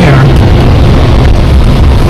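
Loud, steady low rumble inside a Buick's cabin as it drives over rutted, packed snow: engine, tyres and body noise overloading the camcorder microphone.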